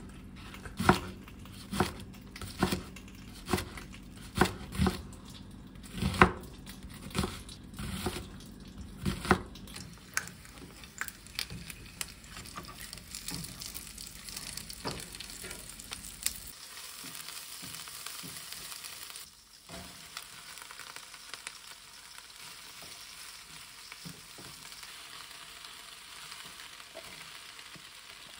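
Chef's knife chopping green onion on a plastic cutting board: about ten chops, roughly one a second. Then dumplings sizzling as they pan-fry in oil, and cabbage stir-frying in a wok with scrapes of a spatula.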